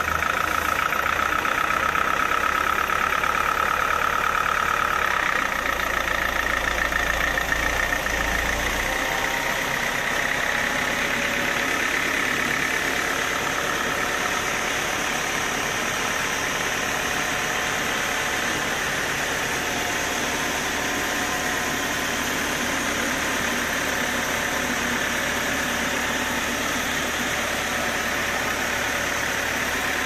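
Band sawmill running steadily: a machine drone under a high whine whose pitch steps up a little about five seconds in. A heavy low rumble eases off about nine seconds in.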